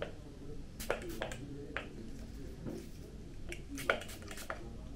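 A few faint, short clicks and taps spread through a few quiet seconds, as of small objects being handled.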